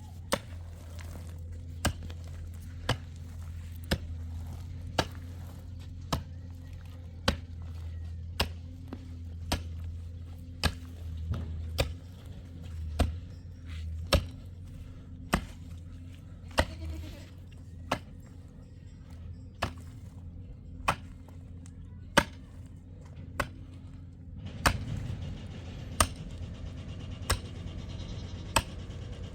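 Repeated sharp strikes at a steady pace of about one a second, typical of a tool blow such as chopping, over a steady low hum.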